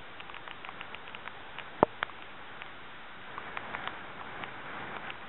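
Hurricane wind and rain on the microphone: a steady rush with scattered crackling ticks of rain, and one sharp knock a little under two seconds in.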